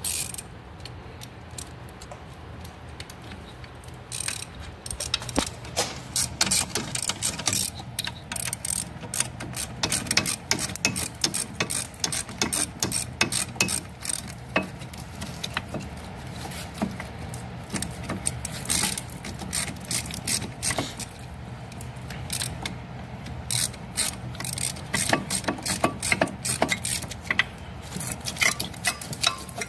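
Socket ratchet clicking in quick runs as it unscrews a front brake caliper bolt, starting about four seconds in.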